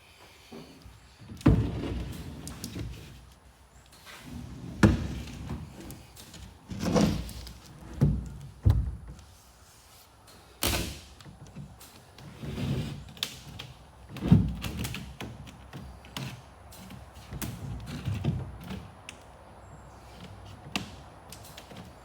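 Irregular heavy thuds and knocks, with a sharp crack about halfway through, as a large wooden floor board is flipped over and set down onto a boat's stringers.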